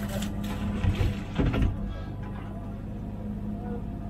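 Komatsu PC16 mini excavator's diesel engine running steadily, heard from the cab, as the bucket dumps wet soil into a truck bed. A couple of heavy thumps come about one and one and a half seconds in.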